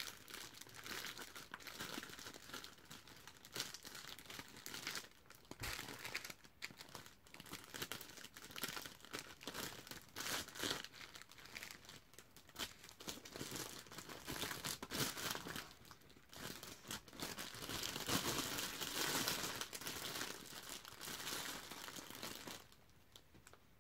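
Clear plastic bag crinkling and rustling in irregular bursts as stacks of trading cards are worked out of it and set down; the crinkling stops shortly before the end.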